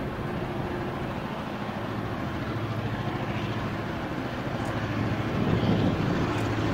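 Two EMD B class streamliner diesel locomotives approaching at a distance, their two-stroke V16 engines running with a steady low drone that grows louder after about five seconds.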